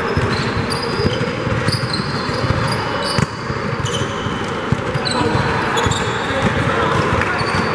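Basketball game sounds on a hardwood gym court: sneakers squeaking again and again in short high chirps and a basketball bouncing, over steady background noise in a large hall.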